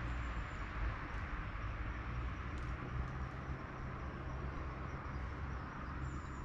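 Steady outdoor ambience: a low rumble with a soft hiss, and a faint high chirp near the start and again near the end.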